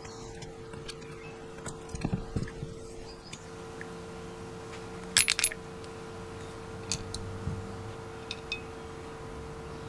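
Small metal lock parts being handled: the nightlatch's case, cam and brass cylinder give a few light taps and, about five seconds in, a quick cluster of bright, ringing metallic clinks. A faint steady hum runs underneath.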